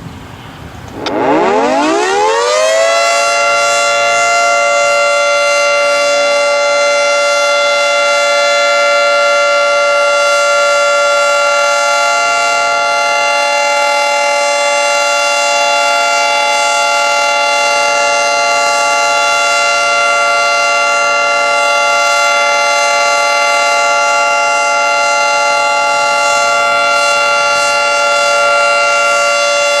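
Federal Signal 2T22 dual-tone outdoor warning siren winding up about a second in, its pitch climbing quickly to full speed, then holding a loud, steady two-tone chord from its 10- and 12-port rotors.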